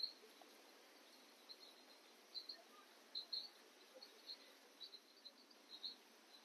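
Near silence with faint, short high chirps repeating irregularly, sometimes in quick clusters of two or three, over a light hiss.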